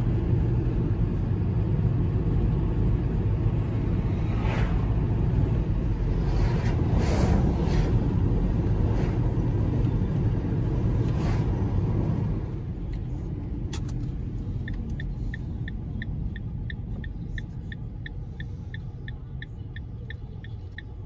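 Road noise inside a moving car: a loud low rumble of tyres and engine, with a few vehicles whooshing past. About twelve seconds in the rumble drops, and the car's turn indicator ticks steadily, about three ticks a second.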